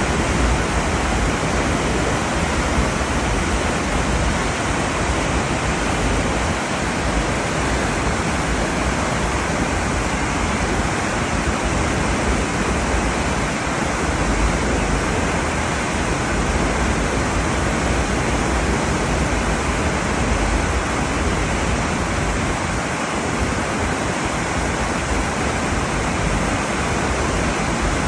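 Steady rush of wind and sea at a ship under way, with a low, uneven rumble of wind buffeting the microphone.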